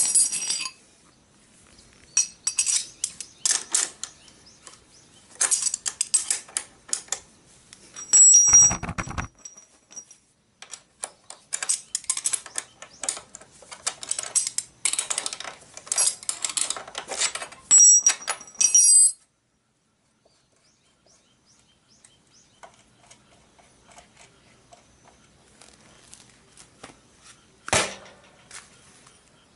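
Bursts of small metallic clicks and clinks from tools and drive-chain hardware being handled at a motorcycle's rear axle and chain adjuster. The clicking stops abruptly about two-thirds of the way through, leaving faint sounds and one sharp knock near the end.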